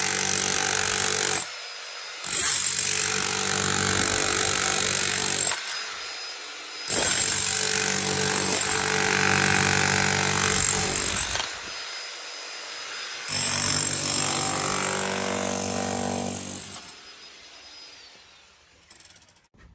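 Electric demolition hammer breaking up concrete. It runs in four bursts of about four seconds each, with short pauses between, then stops.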